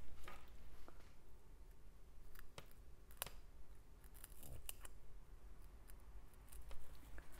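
Tweezers picking at the knotted drawstring of a small organza bag of diamond painting drills: scattered light clicks and rustles.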